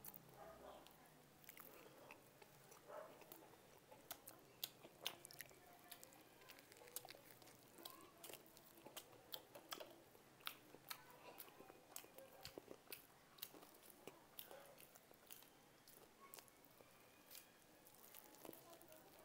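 Quiet chewing and biting into hamburgers: many short, sharp mouth clicks and small crunches scattered irregularly.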